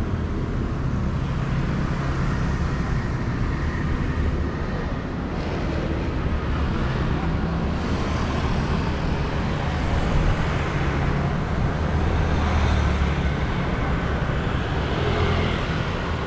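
City street traffic dominated by motor scooters: a steady mix of engine hum and tyre noise over a deep low rumble, getting somewhat louder in the second half as vehicles pass close.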